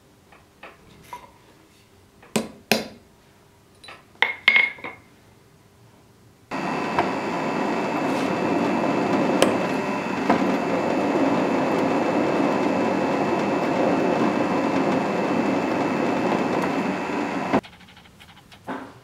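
A few sharp metallic taps and clinks from hand work on a metal pommel block, then a drill press running and drilling into a metal block clamped in a machine vise, starting abruptly about six seconds in and cutting off shortly before the end.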